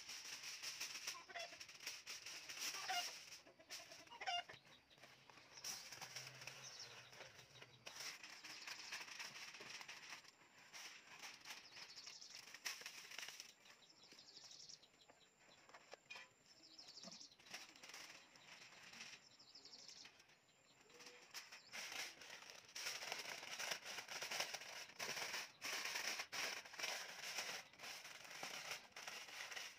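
Aluminium foil crinkling and rustling as it is unrolled, folded and pressed by hand, in uneven spells of rustles and crackles, busiest near the end. A few chicken clucks in the first few seconds.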